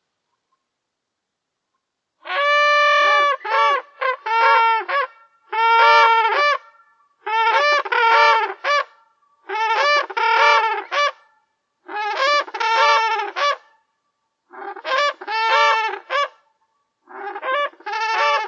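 Cranes calling in loud, rattling trumpet-like bursts, digitally distorted and edited. About eight bursts of quick repeated notes start a couple of seconds in, one roughly every two seconds.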